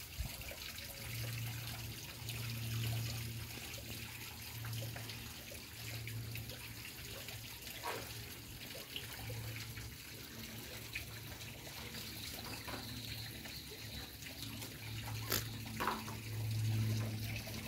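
Stiff-bristled plastic broom sweeping a tiled floor: a steady brushing swish, under a low hum that swells and fades every second or so, with a couple of light knocks near the end.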